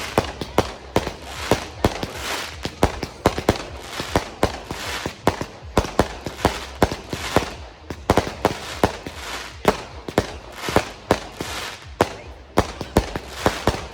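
Fireworks going off, with sharp bangs and crackles in quick, irregular succession, several a second.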